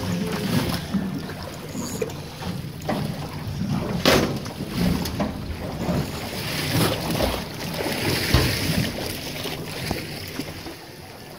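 Wind buffeting the microphone over water sloshing against a small boat's hull, with two sharp knocks about four and eight seconds in.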